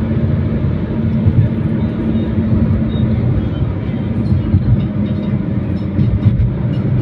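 Engine and road noise heard from inside a moving vehicle: a steady low rumble with a steady hum running through it.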